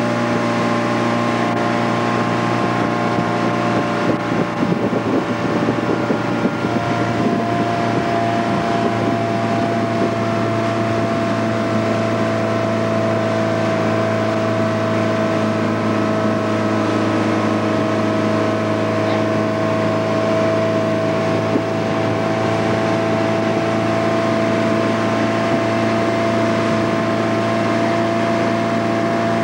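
Motorboat engine running steadily at towing speed, pulling a water-skier, with rushing wake water and wind. A few seconds in, the sound turns rough and uneven for a couple of seconds, then settles back to an even drone.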